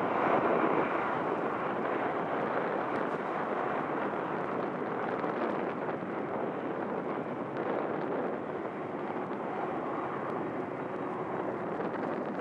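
Jet airliner engines running, a steady, even rush that is a little louder in the first second.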